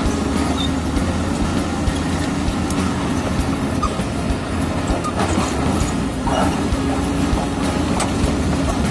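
Komatsu D85E-SS crawler bulldozer working: its diesel engine running steadily, with the clanking of its steel tracks as a fast run of clicks over the top.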